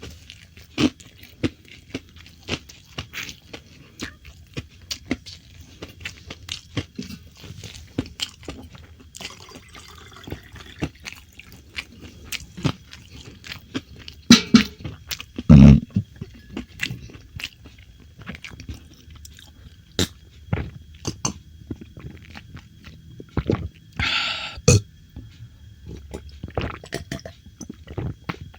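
Close-miked eating: chewing and crunching food with wet mouth clicks, two louder thumps near the middle, and a short noisy burst about two-thirds of the way through.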